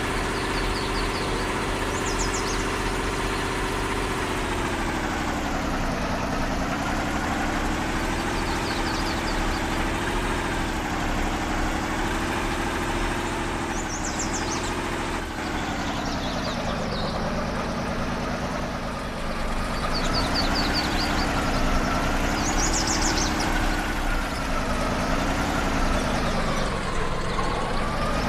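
Off-road vehicle's engine running at low revs, its pitch rising and falling every few seconds. Short high chirps come now and then.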